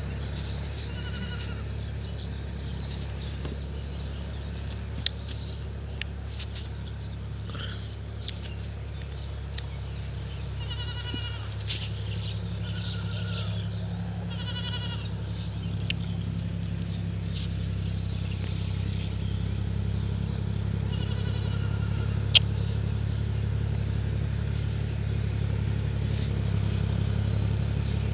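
A steady low engine hum runs throughout and grows a little louder, with about half a dozen short, wavering animal calls a few seconds apart above it and a couple of sharp clicks.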